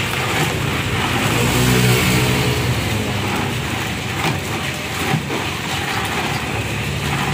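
Motor traffic passing, engines humming continuously and swelling about two seconds in and again near the end, with a couple of light clicks.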